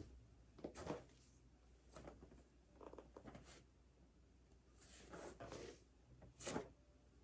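Faint rustling of clothing and soft thuds from a person performing full prostration bows (Korean 108-bow exercise), in several short bursts, the sharpest thud near the end.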